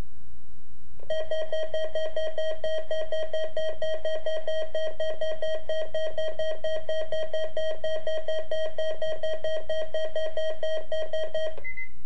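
Midland WR-300 weather radio sounding its alert: a rapidly pulsing electronic beep that starts about a second in and stops just before the end, the radio's signal that an EAS weekly test has been received. A short higher tone follows right after it stops.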